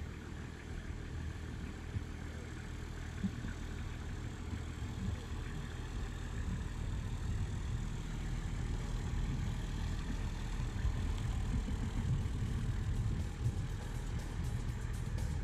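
Toyota Coaster microbus engine running as the bus pulls away and drives slowly past, with a steady low rumble that grows gradually louder as it comes near.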